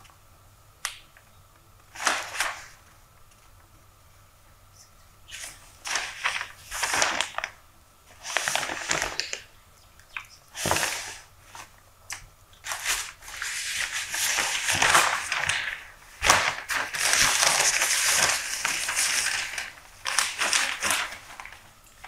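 Newspaper pages being turned and handled, the paper rustling and crinkling in a series of short bursts. In the second half the rustle runs on continuously for several seconds.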